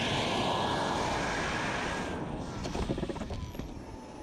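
King Tech K-80 model jet turbine running as an RC jet taxis on its wheels: a steady rushing hiss with a thin whine. About halfway through it fades, with a few crackles, and near the end a high whine falls in pitch.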